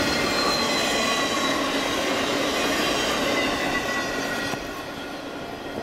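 Empty freight flatcars rolling past, steel wheels squealing with several held high tones over the steady rumble of the cars. The sound drops away about four and a half seconds in as the end of the train goes by.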